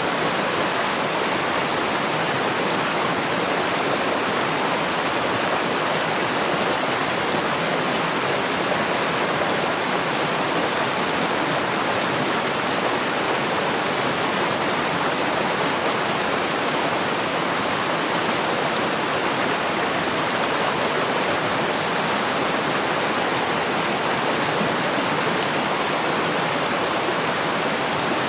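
A small rocky stream rushing over low cascades between mossy boulders: a steady, even rush of water.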